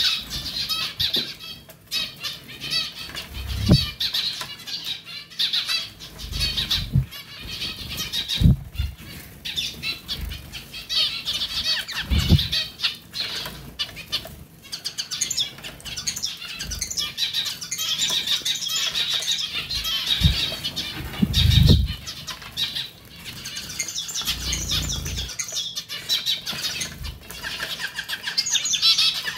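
Zebra finches bathing in a pet water fountain: wings flutter and splash in the shallow water while the fountain trickles, with now and then a bird's chirp and several short low thumps.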